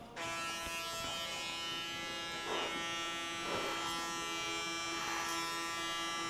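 Electric hair clipper switched on just after the start, then buzzing steadily with a few brief swells of noise.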